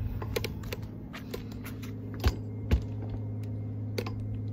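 Handling noise from a hand-held phone being moved: light rubbing and clicks, with two sharp knocks a moment after two seconds in, over a steady low hum.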